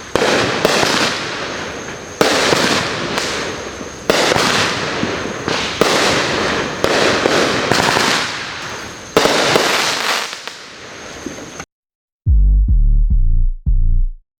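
Consumer fireworks going off: a loud bang every one to two seconds, each trailing off into crackle. About 11.5 seconds in they cut off abruptly. After a brief gap, electronic music with a heavy bass beat starts.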